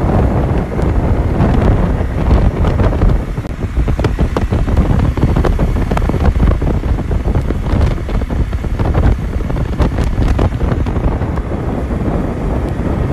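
Heavy wind buffeting on the microphone of a camera riding on a moving motorcycle, with the motorcycle running and its tyres crunching over a gravel road underneath.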